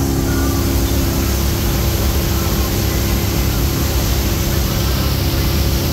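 Inboard wake-surf boat engine running steadily under the rush of the churning wake water.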